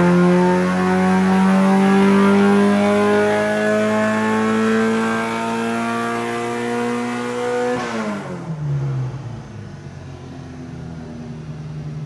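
A vintage BMW race car's four-cylinder engine pulls hard with the revs climbing steadily for about eight seconds. Then it lifts off, the revs fall sharply, and it settles to a steady lower speed.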